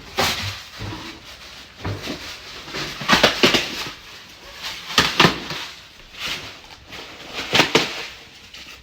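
Styrofoam packing being pulled and handled: a series of short scraping, squeaking bursts, about five of them a second or so apart.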